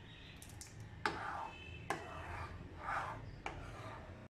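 A metal spoon stirring thick raw-mango pulp in a saucepan: soft swishing of the pulp with three light knocks of the spoon against the pan.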